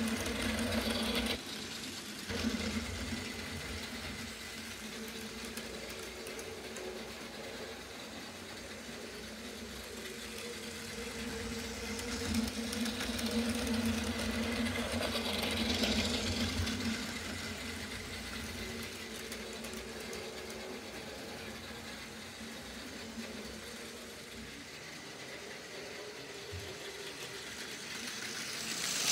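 Battery-powered Plarail toy shinkansen trains running on plastic track: a steady small-motor whir with the rattle of the wheels on the rails. It swells as a train passes close about halfway through and grows again near the end as another approaches.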